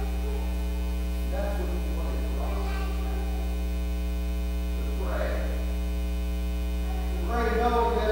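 Steady electrical mains hum, with a man speaking in short phrases over it.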